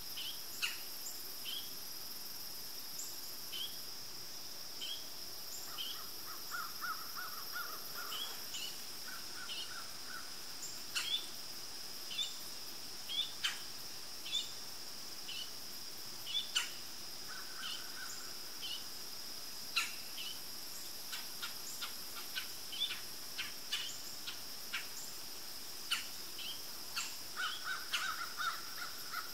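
Insects droning steadily at one high pitch, with short bird chirps about once a second and a few brief pulsed bird calls. Scattered sharp clicks and rustles come from cord being pulled and tied around logs.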